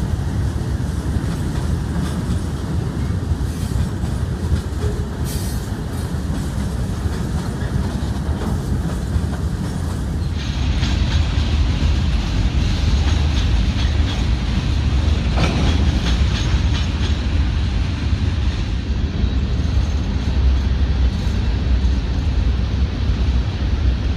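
Mixed freight train cars rolling past on the track: a steady rumble of steel wheels on rail that grows louder about ten seconds in.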